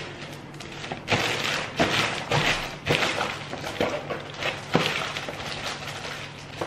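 Clear plastic packaging bag crinkling and rustling in irregular bursts as it is pulled off a cardboard box, with a few light knocks of the box being handled.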